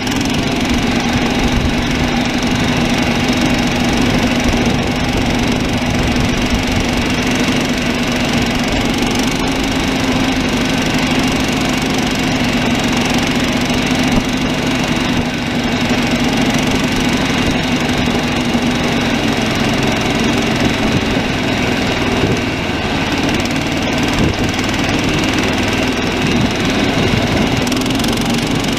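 The small gasoline engine of a SnowDog tracked snow machine running steadily under load as the machine drives across grass.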